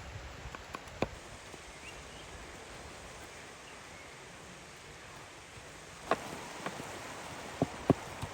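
Wood fire crackling under a boiling pot: a steady hiss with sharp pops, one about a second in and several more near the end.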